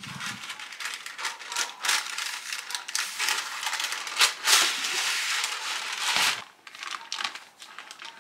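Parchment paper crinkling and crackling as it is pulled from its cardboard box and spread over a metal baking sheet, with many small crackles; it is loudest about four to five seconds in and dies down after about six seconds.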